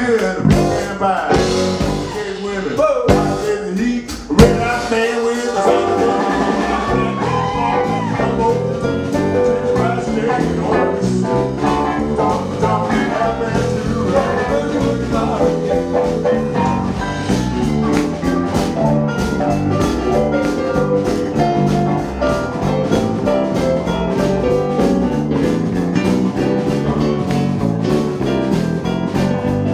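Live blues band playing: electric bass, drum kit and electric guitar, with a loud accent about four seconds in.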